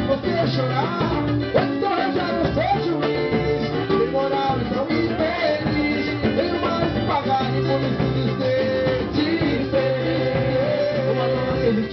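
Live samba-pagode group playing, with plucked string instruments over percussion and a steady groove.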